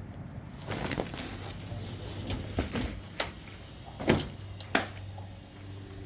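A series of irregular knocks and bangs, about seven in all, the loudest a little over four seconds in, over a low steady hum.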